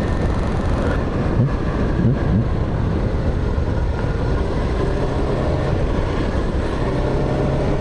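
Honda Lead 125 scooter's single-cylinder four-stroke engine running while riding, with wind buffeting the microphone. The engine pitch rises briefly about two seconds in.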